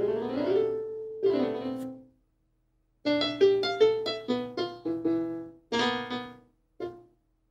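Sampled piano notes from FL Studio's FL Keys plugin, played by tapping its on-screen keyboard on a touchscreen. A few notes ring at the start, then after a short pause a quick run of single notes follows, with one last short note near the end.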